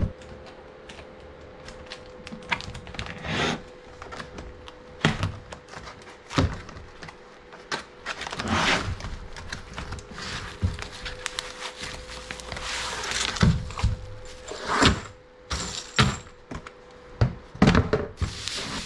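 Metal hardware and mounting parts being handled and fitted by hand: irregular knocks, clicks and light rattles, with a few longer scraping or rustling stretches and a faint steady hum underneath.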